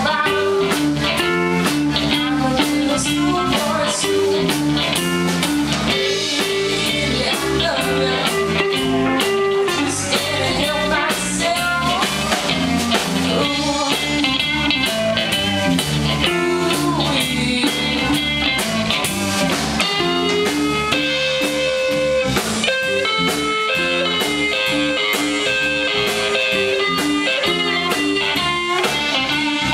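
Live electric blues-rock band playing: electric guitars, electric bass and a drum kit, with a Stratocaster-style electric guitar carrying a lead line of held, changing notes over the rhythm.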